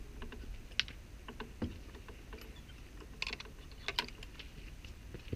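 A handful of sharp clicks and knocks from a wooden field gate being opened and passed through, with the loudest about a second in and near four seconds.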